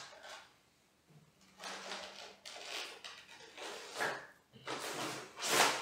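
Cables and parts being shifted around inside a wooden packing crate: a series of rustles and scrapes, the loudest just before the end.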